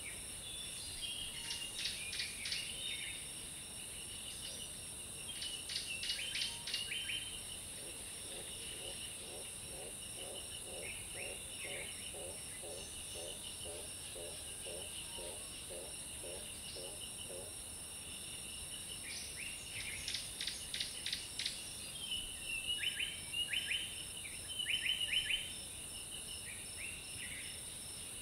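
Tropical forest ambience: a steady high insect drone with chirping insects, broken by clusters of rapid, sharp bird calls. In the middle a low call repeats about twice a second for around ten seconds.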